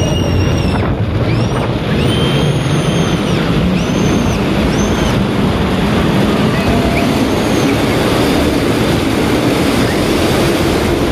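Inflatable snow tubes sliding down a plastic-tile rainbow slide: a loud, steady rushing rumble with wind buffeting the microphone. Several short high squeals come in the first five seconds.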